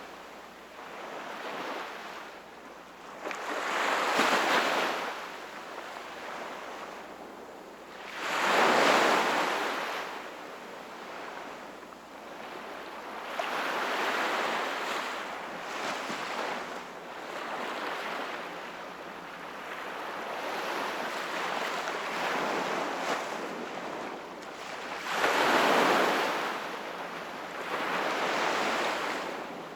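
Small ocean waves breaking and washing up the shore, each surge rising in a rush of hiss and then draining back, with larger waves about 4, 9 and 26 seconds in.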